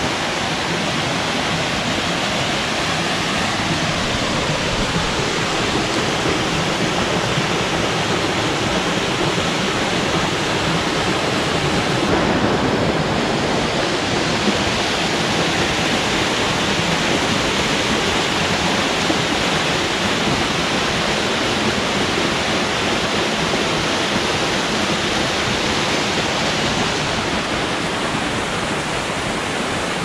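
Steady rush of a creek's water falling and running over rocks, an even sound without a break.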